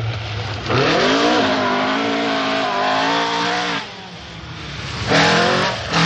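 Rally car engine revving hard under acceleration. The pitch climbs steeply about a second in and holds high, falls away just past the middle, then climbs again near the end.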